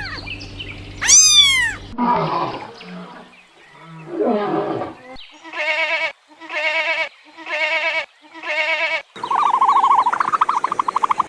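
Different farm animal calls one after another. One arched, rising-then-falling call; then low rough growling calls; then four evenly spaced wavering calls about a second apart; then a fast, high trilling call near the end.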